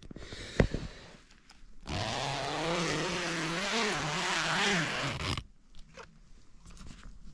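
Tent door zipper pulled open in one long, loud stroke of about three and a half seconds, starting about two seconds in, its rasp wavering in pitch as the pull speeds and slows. A click and soft fabric rustling come before and after it.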